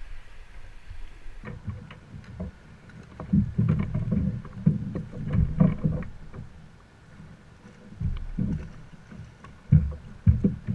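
Water lapping and knocking against the hull of a plastic sit-on-top kayak, with irregular bumps and knocks from movement and gear aboard. A few louder bumps come near the end.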